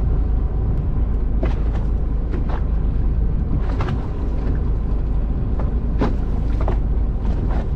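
Steady low rumble of a fishing boat running, with a few short knocks scattered through.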